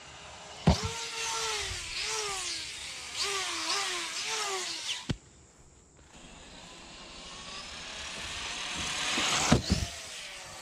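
Arrma Typhon V4 RC buggy's brushless motor whining, its pitch swooping up and down with the throttle. After a brief break, the buggy accelerates with a steadily rising, growing whine, and two sharp knocks near the end come as it hits the ramp and launches.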